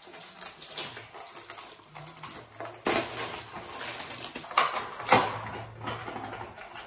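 Cardboard pregnancy-test box being handled and opened by hand: rustling of the carton with a few sharp snaps of the flaps, the loudest about three seconds in and again around five seconds.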